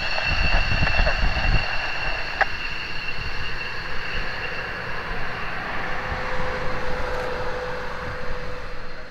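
F-16 fighter jet's turbofan engine running with a steady high whine as the jet rolls along the runway. A low rumble sits under it for the first second and a half.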